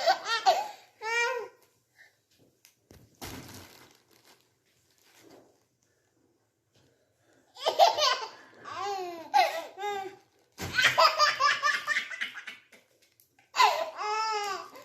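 Baby laughing in several bursts of high-pitched giggles and belly laughs, the voice leaping up and down in pitch, with a quiet stretch in the middle broken by a short noisy bump about three seconds in.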